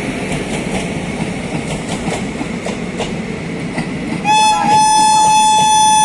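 Passenger coaches rolling past with a steady rumble and the clicking of wheels over rail joints. About four seconds in, the WAP-7 electric locomotive's horn starts a loud, steady, single-pitched blast.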